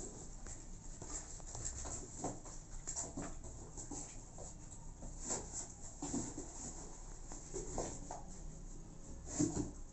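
A kitten scrabbling at and biting a cloth: irregular rustling and scratching, with a louder scuff near the end.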